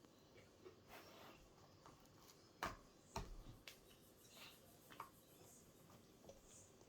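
Faint, scattered clicks and small pops from slime being pressed and worked by hand, with two sharper clicks about half a second apart a little before the middle. The slime is not popping properly: it is too small to stretch thin.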